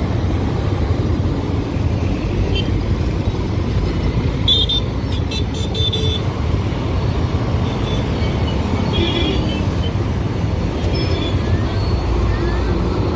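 Steady running noise of a motorcycle ride on a highway, the Royal Enfield 350's single-cylinder engine under the rush of road and wind. Vehicle horns toot briefly several times.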